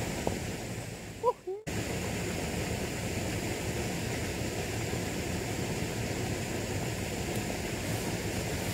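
Steady, even hiss of outdoor riverside ambience, with one short vocal sound about a second in and a brief dropout of the sound just after.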